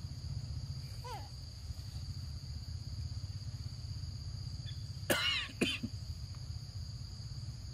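Steady drone of insects with a low rumble underneath. About five seconds in comes a brief high, wavering squeal, with a second short one just after.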